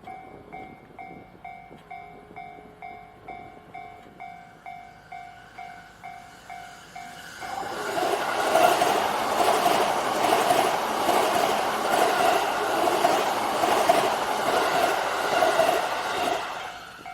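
Japanese level-crossing alarm ringing, an electronic bell pulsing about twice a second. About seven seconds in, a Keihin-Tohoku Line E233 series electric train passes over the crossing. The train is loud for about nine seconds and covers the bell, which is heard again near the end.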